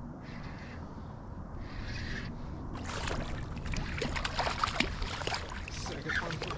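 Water splashing at the surface right beside a kayak as a hooked fish thrashes while being landed by hand. The splashing starts about three seconds in and is irregular and choppy.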